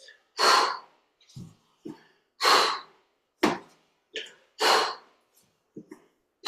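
A person breathing hard from exertion close to the microphone: loud, hissy exhales about every two seconds, with quieter breaths between them.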